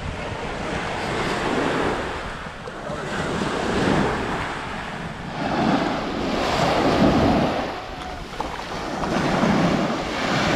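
Small waves washing up onto a sandy shore, the surf swelling and falling every two to three seconds, with wind buffeting the microphone.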